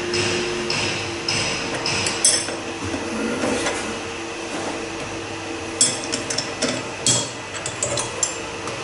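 Sharp metallic clinks and taps of tools and parts against the body of a high-pressure diesel fuel pump clamped in a bench fixture as it is reassembled. Most of them come close together in the second half.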